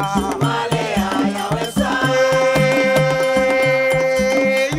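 Music: a song over a steady drum beat, with a long note held from about two seconds in until just before the end.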